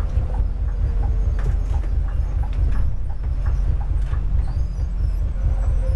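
Steady low rumble of a bus's engine and tyres, heard from inside the cabin at the front, with scattered light rattles and knocks.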